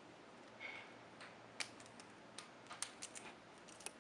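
Faint scattered light clicks and a brief rustle, about eight small ticks spread irregularly, from hands undoing the tie on a clip-on microphone's coiled cable.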